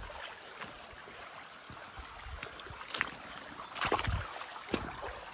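A small mountain stream running steadily, with a few short knocks of footsteps, the sharpest about three and four seconds in.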